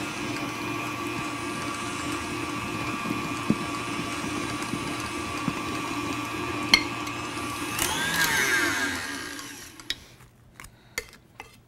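KitchenAid tilt-head stand mixer whipping Italian meringue, its motor running with a steady hum and whine. About eight seconds in the pitch shifts and slides down as the mixer winds down to a stop, followed by a few light clinks.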